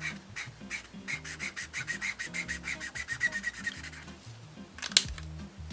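Felt-tip Copic alcohol marker being scribbled quickly back and forth on sketchbook paper, several short rubbing strokes a second, with one sharp click near the end.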